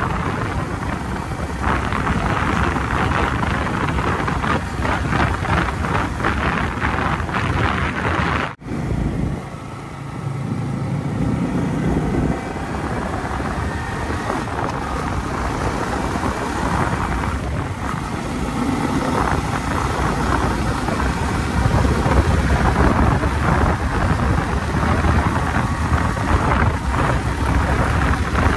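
Wind buffeting a phone microphone on a moving motorcycle, a dense rushing rumble with the motorcycle's engine running underneath. The sound cuts out for a moment about eight and a half seconds in, then carries on.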